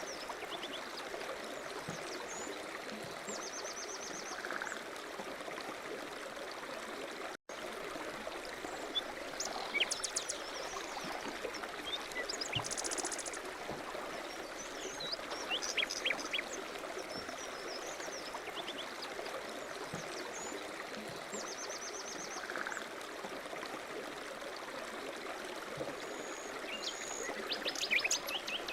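Steady flow of running water, like a stream, with birds chirping and giving short rapid trills now and then throughout.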